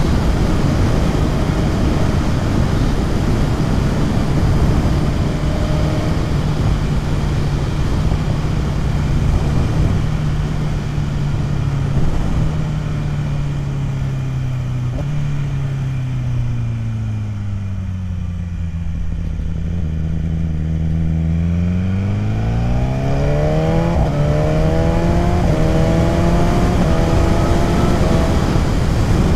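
BMW S1000RR inline-four sport bike engine with wind rush over the rider's microphone. The bike cruises steadily, then the engine note falls in steps as it slows and the wind fades. About two-thirds of the way in it accelerates hard, the note climbing in several rising sweeps, each broken by a quick drop at a gear change.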